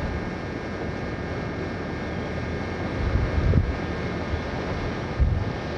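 Steady drone of the tug's engine moving a barge through the canal, with wind buffeting the microphone about three seconds in and again near the end.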